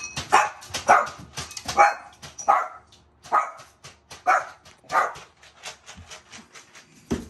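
Shih Tzus barking in short, sharp barks, about seven of them, roughly one a second, that stop about five seconds in.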